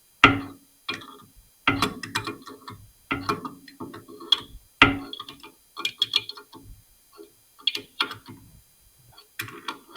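Irregular metallic clicks and clinks of hand tools and small air-line pipe fittings being handled and worked at the bench, a dozen or so sharp knocks that each die away quickly.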